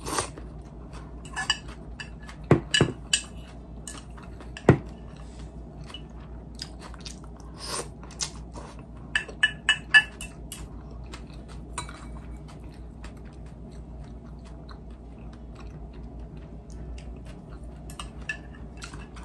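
Close-miked eating sounds: a person slurping and chewing noodles, with chopsticks now and then clicking against a ceramic dipping bowl in short sharp taps.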